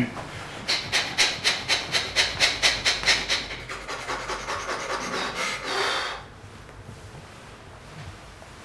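Quick rasping rub strokes, about four a second, run into a longer continuous rasp that stops about six seconds in.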